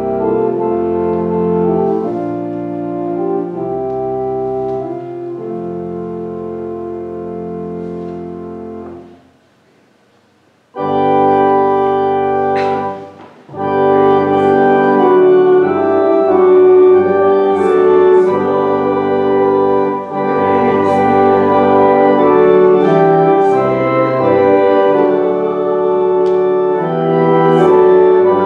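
Organ playing sustained chords as offertory music. One passage fades out about nine seconds in, and after a short silence the organ starts again, louder, with full held chords.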